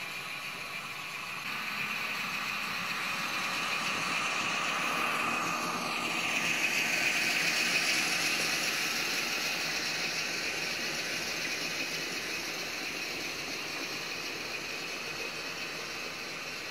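N-scale model train rolling past: the locomotive's small electric motor whirring and the wheels running on the rails. It grows louder as the train nears, is loudest about seven to eight seconds in, then slowly fades as the freight wagons go by.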